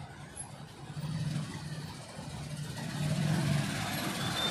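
A motor vehicle's engine running, its low steady hum growing louder about a second in and again about three seconds in.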